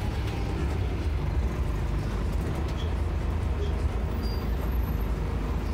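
Volvo B10BLE single-deck bus's rear-mounted six-cylinder diesel engine running under way, heard from inside the passenger saloon as a steady low rumble mixed with road noise.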